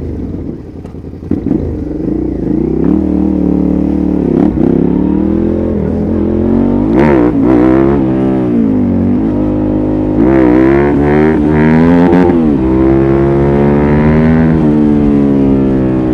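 Suzuki SV650S 90-degree V-twin through a LeoVince aftermarket exhaust with dB-killer, revved up and down several times, the pitch rising and falling with the throttle.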